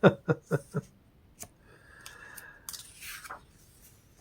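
Glossy pages of a large book being handled and turned: a soft rustling and sliding of paper about two to three seconds in. A quick run of short voice sounds, like a brief chuckle, comes in the first second.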